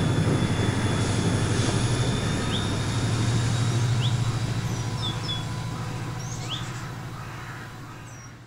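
00 gauge model train running past, a steady low hum and rumble that fades away over the last few seconds. Several short bird chirps sound over it.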